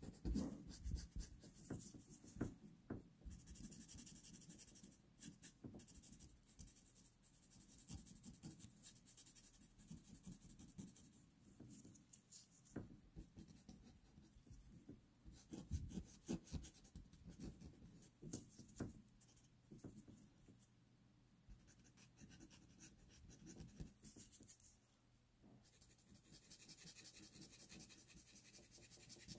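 Faint scratching of a pastel pencil on pastel paper: many short, quick strokes in irregular runs with brief pauses.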